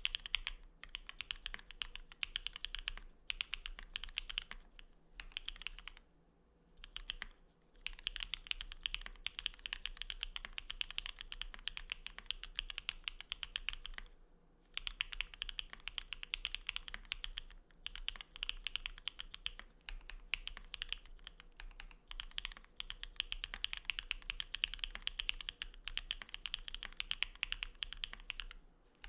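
Mechanical keyboard typed on fast and continuously, with a few short pauses: a Geon Works F1-88 with an aluminium plate, lubed Cherry Cream linear switches (MX black housings with NK cream stems) and XMI ascii keycaps.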